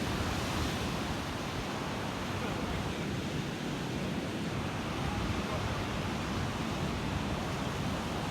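Steady rushing outdoor noise of wind and surf, even throughout, with no distinct events.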